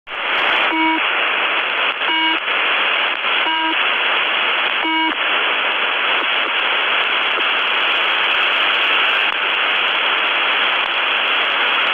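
Shortwave radio receiver tuned to a numbers-station frequency: steady static hiss, with four short beeps about a second and a half apart in the first five seconds, then only static.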